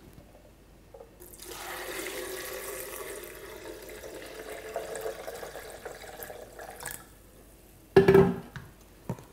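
Water poured from a glass jug into a plastic blender jar over soaked almonds and dates, a steady splashing fill whose pitch rises slightly as the jar fills. A short knock comes near the end.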